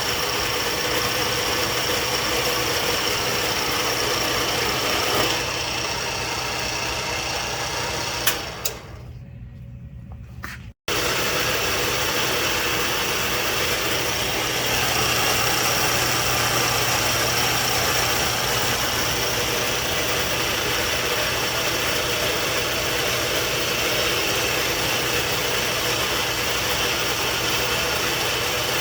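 A machine in a metal shop running steadily, a motor hum with a high whine. About eight seconds in there are two sharp clicks, and the sound drops away for a couple of seconds before the machine noise comes back at full level.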